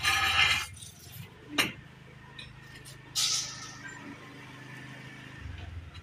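Ceramic floor tiles and tools being handled while tiling: a short rasping scrape at the start, a sharp click about a second and a half in, and another scrape about three seconds in, over a low steady hum.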